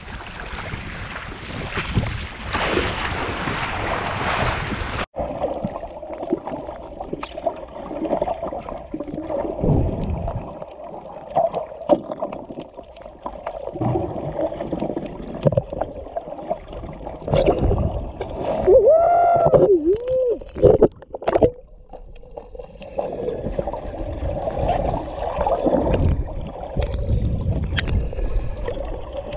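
Wind and surf at the water's edge for about five seconds, then the sound turns abruptly muffled as the camera goes underwater: water sloshing and gurgling against the camera housing, with scattered clicks and a few bubbling warbles partway through.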